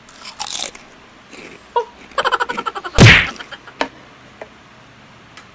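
Comic sound effects laid over eating: a short crunch at the start, a quick run of pitched blips around two seconds in, then a loud punch-style whack about three seconds in, the loudest sound, with a few small clicks after it.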